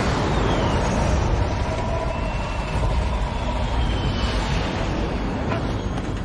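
Loud steady roar of a low-flying jet cargo plane and rushing wind in a film sound mix.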